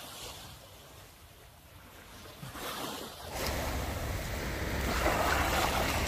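Sea waves washing on the shore, with wind rumbling on the microphone. It grows louder about three seconds in.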